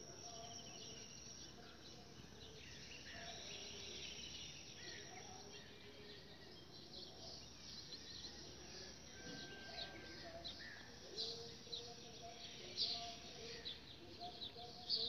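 Many small birds chirping and twittering at once in a morning chorus, with some lower calls mixed in over a faint steady background hiss; the chirping gets busier and louder in the last few seconds.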